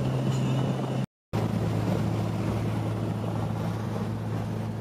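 Inside the cabin of a 1986 Nissan 200SX S12 cruising at highway speed: the steady drone of its CA20E four-cylinder engine under road and wind noise. The sound cuts out for a moment about a second in, then carries on at a slightly different pitch.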